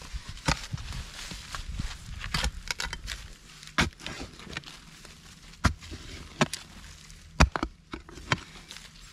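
Short-handled hand hoe striking and scraping loose soil: about ten sharp strikes at uneven intervals, with soil grating and falling between them.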